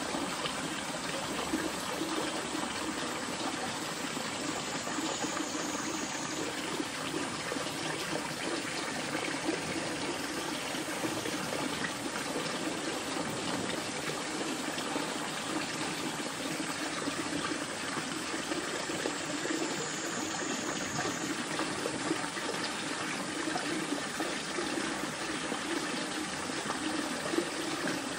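Steady rushing of flowing water, like a stream, with two faint high calls about 5 and 20 seconds in.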